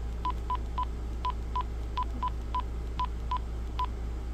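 Quansheng UV-K5-style handheld radio giving its key-press beep as its menu is scrolled: a quick string of short, identical single-pitch beeps, roughly two or three a second.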